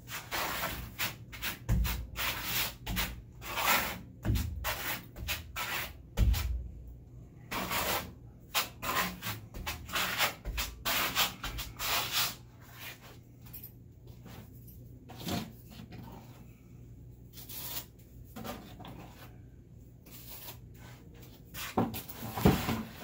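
A hand tool scraping against the wall in quick repeated strokes for about the first half, then fewer and quieter strokes, with a louder flurry near the end.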